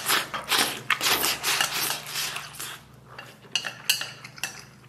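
Wooden chopsticks scraping and clattering against a metal plate as rice is shovelled off it, in quick repeated strokes. Near the end come a few separate sharp clinks, the loudest about four seconds in.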